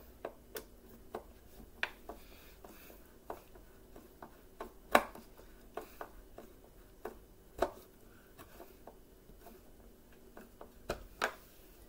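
Irregular sharp clicks and knocks of hard plastic as the housing of a Bissell Powerforce Bagless upright vacuum is handled and pressed into place on its base. About a dozen in all, the loudest about five seconds in, with two more strong ones near eight seconds and near the end.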